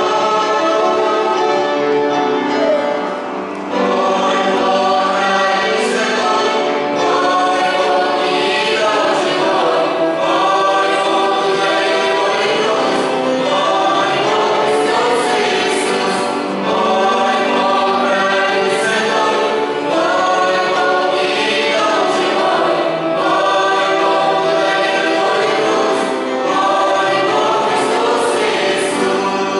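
Youth choir singing a Christian song, many voices together.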